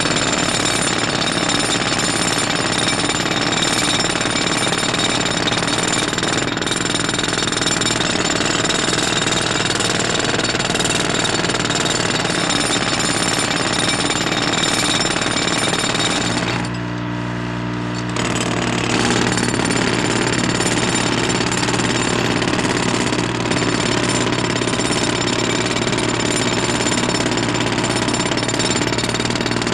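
Continuous rapid mechanical hammering that stops for about a second and a half a little past halfway, leaving a steady low engine-like hum, then starts again.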